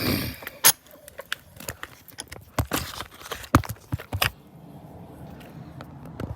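Sharp metallic clicks and clanks of pliers and an aluminum pipe being handled and knocked about, several in quick succession, then a steady low hum from about four seconds in.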